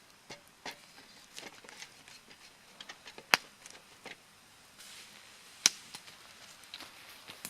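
Wood campfire crackling: scattered small ticks and snaps, with two sharp loud pops, one about three seconds in and one a little before six seconds.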